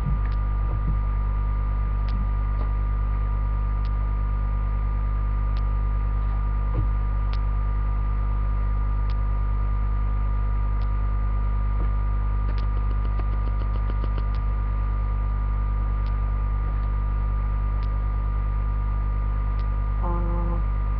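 Steady electrical mains hum with a row of steady tones above it, picked up by a webcam microphone. A faint click comes about every second and three-quarters, with a quick run of clicks about midway.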